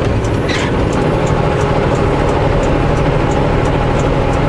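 Semi truck's diesel engine and road noise, heard as a steady low rumble from inside the cab while driving, with faint regular high ticks over it.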